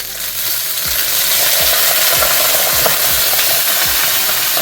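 Fish frying in hot oil in an iron wok, sizzling loudly. The sizzle swells just after the start, as cooking wine is poured into the hot pan.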